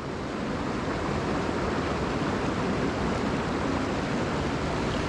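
Steady rush of a mountain stream's flowing water, an even hiss with no breaks.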